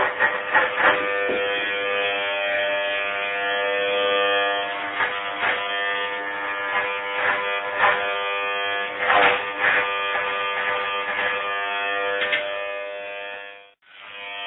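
Corded electric hair clippers buzzing steadily as they cut hair from a head, with irregular short crackles over the buzz. Near the end the buzz cuts off abruptly and starts again.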